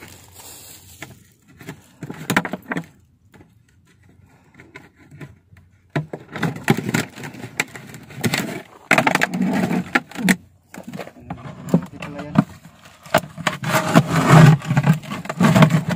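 Handling noise: a phone microphone rubbing and knocking against a cotton shirt as it is jostled, in irregular scuffs and rustles that grow dense and loud from about halfway through.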